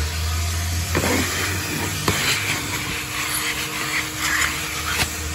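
Car wash vacuum hose running, its nozzle drawn along a car's seat edge and floor: a steady loud suction rush over a low hum, with a few sharp clicks as the nozzle knocks against the car.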